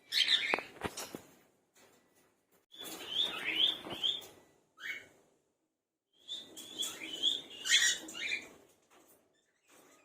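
Cockatiels chirping in three or four short bursts of quick rising and falling chirps, with quiet gaps between them.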